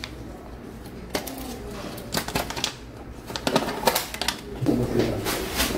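Sublimation transfer paper and its tape being peeled off a freshly pressed ceramic mug: a run of irregular crackling, rustling clicks, busier in the second half.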